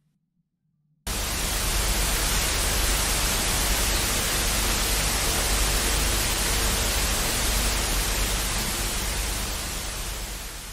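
TV static hiss: a steady rush of white noise that cuts in suddenly about a second in and fades away near the end.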